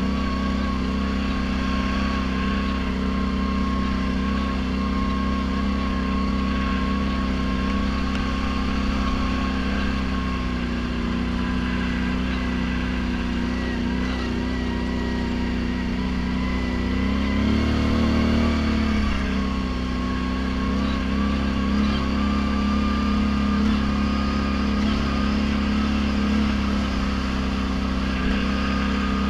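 ATV engine running steadily at trail-riding speed, with a brief rise and fall in revs about eighteen seconds in.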